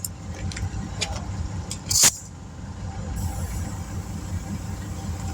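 A vehicle engine idling steadily as a low rumble, with a few light clicks and one short, sharp hiss about two seconds in.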